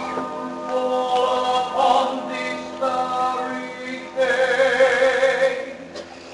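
Slow stage-musical ballad: singing over orchestral accompaniment in long held notes, dropping to quieter sustained accompaniment near the end.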